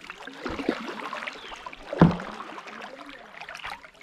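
Kayak paddles dipping and splashing in the water, with a sharp knock about two seconds in.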